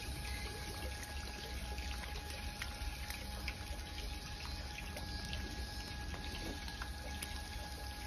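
Steady trickle of running water with a faint, steady hum and occasional light ticks.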